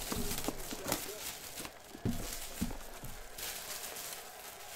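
A cardboard trading-card box is handled by hand. A few light knocks and taps come as it is set down and shifted, the sharpest about two seconds in, followed by cardboard rubbing and sliding.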